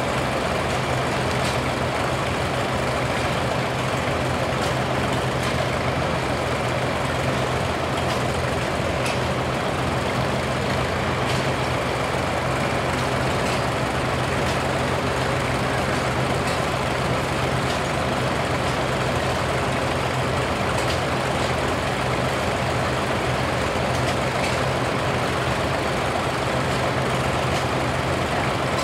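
Vintage farm tractors idling steadily in line, a green Oliver and a red Farmall, with a constant low engine drone.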